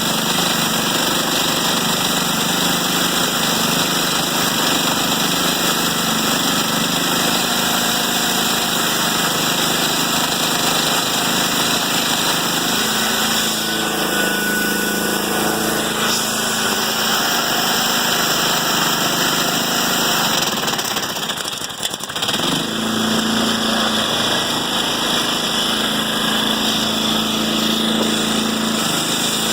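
Chainsaw mill's engine running steadily and loudly, with a brief drop in level about two-thirds of the way through before it picks back up.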